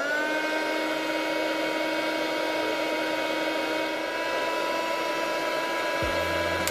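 Small hot-air heat gun running while it shrinks heat-shrink tubing: its fan motor whines up in pitch as it switches on, then holds a steady whine over a rush of air.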